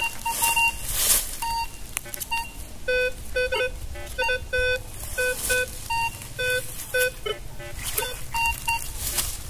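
Minelab Vanquish 540 metal detector giving a quick, irregular string of short beeps at several pitches, low, middle and high, as its coil passes over ground crowded with buried metal, which the detectorist takes for trash. A few rustles come between the beeps.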